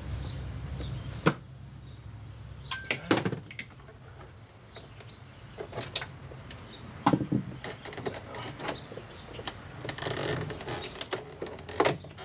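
Scattered sharp clicks, knocks and rattles of car door trim parts being handled and worked loose by hand during door disassembly. A low steady hum cuts off with a sharp click about a second in.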